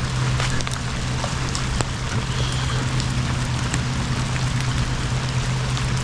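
Hard rain falling, with many separate drops ticking close by, over a steady low hum.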